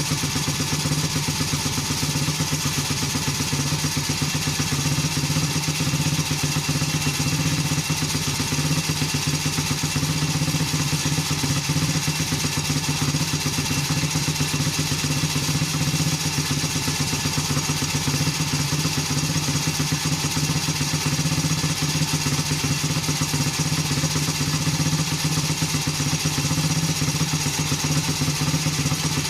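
Terrot 125 ETDS motorcycle engine running steadily at one even speed, its firing pulses regular and unchanging.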